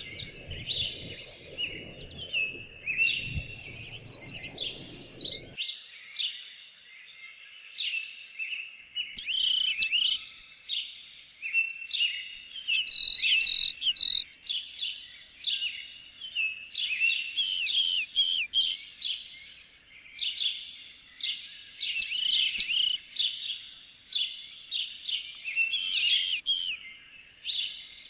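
Small birds chirping and twittering without a break, many short, quick calls overlapping. A low rumbling noise runs underneath for the first five seconds or so, then stops abruptly.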